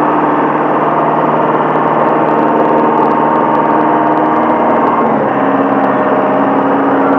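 Tractor engine running hard under load as its wheels churn through deep mud, holding a steady pitch that shifts about five seconds in.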